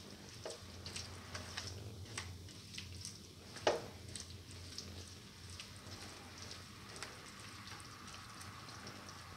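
Minced chicken and tomato mixture sizzling faintly in a pan as a spatula stirs it, with scattered small crackles and one louder click a little under four seconds in.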